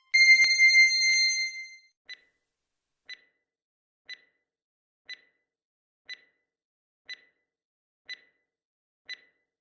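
Quiz countdown-timer sound effect: a long electronic beep lasting about two seconds, then short ticks once a second, eight in all, counting off the answering time.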